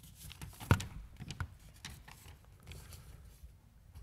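Sheets of paper being handled at a lectern: scattered rustles and small taps, with one sharper knock a little under a second in.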